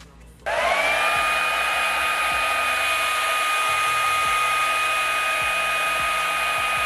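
Handheld blow dryer switched on at its cool, high setting about half a second in: its motor whine rises briefly as it spins up, then holds a steady high whine over loud rushing air.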